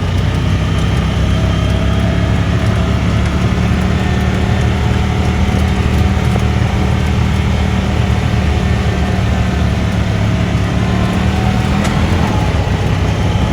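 ATV engine running at a steady speed while riding, a low even hum that shifts slightly in pitch near the end.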